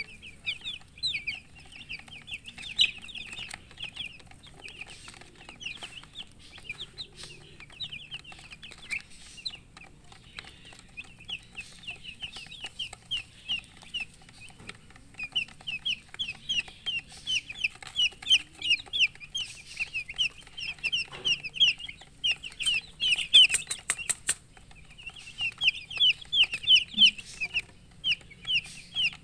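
Baby chicks peeping: many short, high chirps, each sliding down in pitch, come in quick runs with brief pauses. A few sharp clicks or rustles are heard about three quarters of the way through.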